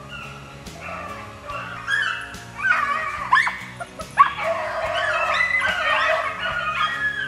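Pack of beagles baying while running a rabbit, with quick rising yelps in the middle and the cries louder through the second half, over a music track.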